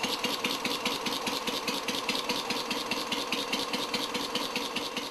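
Quarter-scale model of a 1912 Red Wing Thoroughbred hit-and-miss gasoline engine running, with a quick, even beat of about seven or eight pulses a second over a steady hum.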